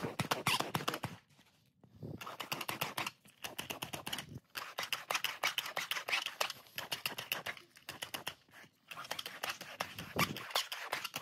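ChomChom pet-hair roller rolled back and forth over fabric couch upholstery, its ratchet giving fast runs of sharp clicking in strokes of about a second with short pauses between. The clicking is the sign that it is being run fast enough to work properly; run too slowly it does not click.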